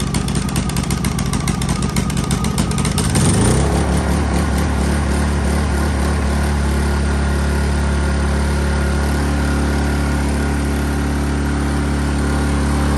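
Honda EU-series inverter generator's small engine running unevenly just after a cold start, still warming up on choke. About three seconds in, its speed rises and it settles into a steady, even run.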